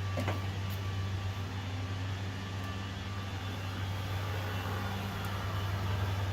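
A steady, low machine hum with a noisy hiss over it.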